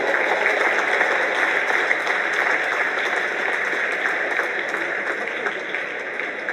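Spectators applauding a won point in a table tennis match: dense clapping that starts abruptly and slowly dies away.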